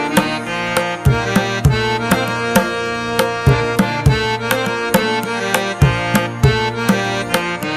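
Instrumental background music: a steady hand-drum beat under sustained melodic tones.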